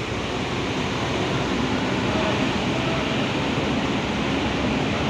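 Large diesel coach's engine running as the bus moves slowly off across wet pavement, over a steady hiss of light rain.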